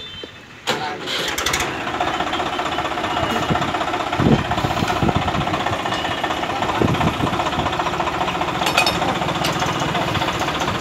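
Swaraj tractor's diesel engine starting about a second in and then running steadily, with a few sharp knocks over it.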